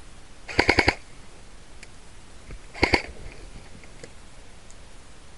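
Airsoft rifle firing two short full-auto bursts of rapid shots, about five shots then about three, the second burst about two seconds after the first.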